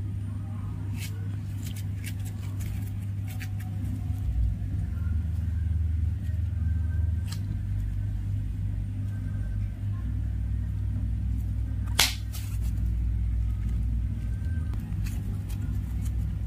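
Pink toothpaste slime with small cube bits being stretched and squeezed by hand, giving scattered sharp clicks and pops, the loudest about twelve seconds in. A steady low rumble runs underneath.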